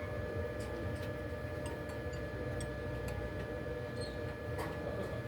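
A few light, irregular clicks and ticks of small repair tools and phone parts being handled, over a steady electrical hum.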